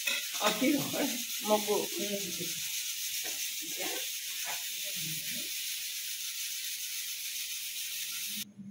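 Steady sizzling hiss of food cooking in a pot on the stove, with quiet speech over the first half; the hiss cuts off abruptly near the end.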